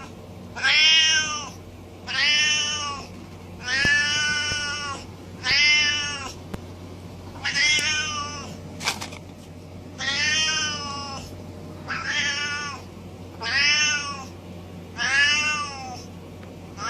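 A cat yowling over and over, about nine drawn-out calls that each rise and fall in pitch, coming roughly every one and a half seconds. A single sharp click sounds about halfway through.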